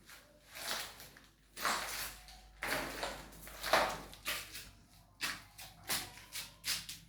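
A series of short scraping strokes, about one a second, coming quicker near the end.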